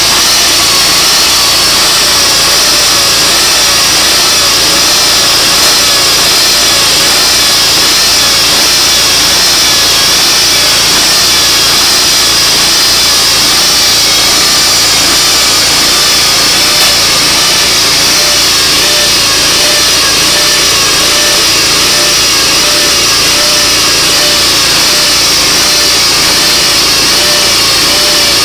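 Portable sawmill's engine running steadily under load as the mill cuts a mesquite log, loud and unbroken, its pitch wavering slightly in a slow regular rhythm.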